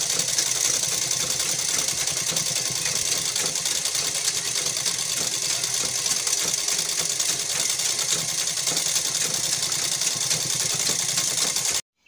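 Sewing machine running steadily as cloth is stitched, a fast, even rattle of needle strokes; it cuts off abruptly near the end.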